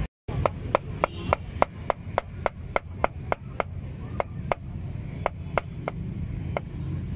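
A steel meat cleaver chopping roast pork belly on a thick round wooden chopping block: about twenty sharp chops at roughly three a second, each with a short ring, with a brief pause about four seconds in. A steady low hum of street noise runs underneath.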